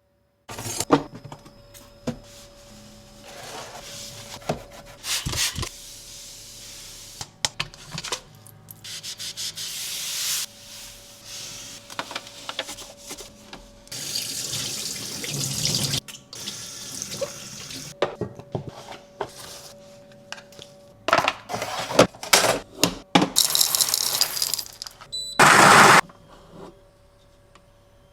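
Coffee machine running water through itself during a reset: water flowing and hissing in stretches, with clicks, knocks and a faint steady hum coming and going, and a short loud hiss about two seconds before the end.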